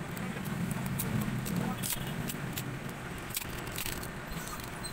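A run of small sharp clicks and taps of phone parts being handled: the plastic frame, board and battery assembly of a Realme C2 smartphone being pulled apart during disassembly. A steady low rumble of traffic and voices runs underneath.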